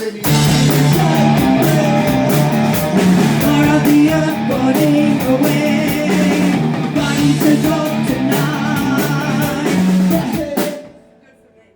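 Rock band of electric guitar and drum kit playing a loud passage as a sound check, then stopping abruptly near the end.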